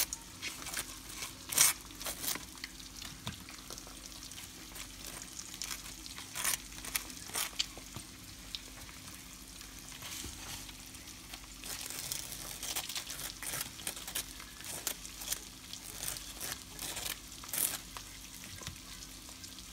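Table knife scraping butter across the crisp surface of toasted bagel halves: repeated, irregular scratchy rasps with an occasional sharp click.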